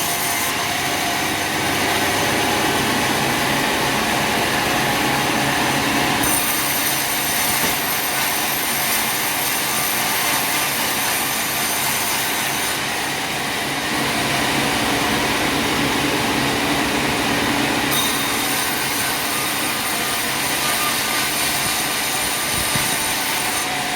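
Sawmill machinery running steadily while sawing timber, a dense mechanical noise with a high whine that drops out and comes back a few times.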